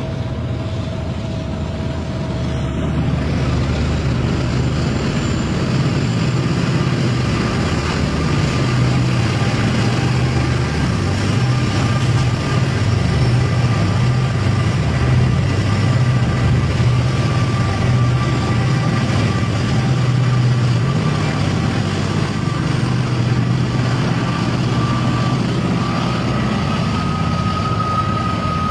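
Diesel freight locomotives running: a steady low engine drone with a faint whine above it that steps up slightly near the end.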